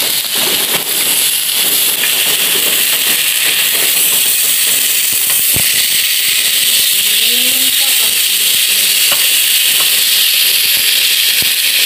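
A whole pompano sizzling as it fries in a Happy Call double-sided pan: a steady, high frying hiss, with one sharp knock about halfway through.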